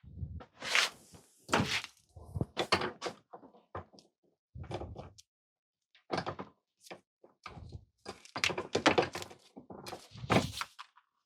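Irregular knocks, thunks and clatter of tools and parts being handled and set down on a work surface.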